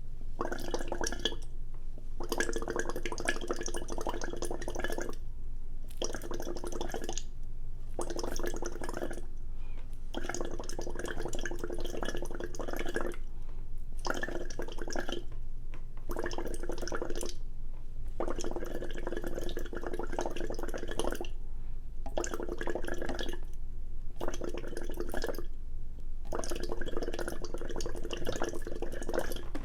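Wet slurping mouth sounds of a person eating, in runs of one to three seconds with short pauses between, over a steady low hum.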